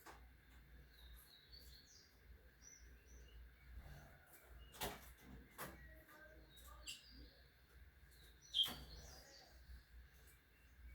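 Faint, scattered short bird chirps, with a few sharp clicks among them; the loudest click comes about three-quarters of the way in.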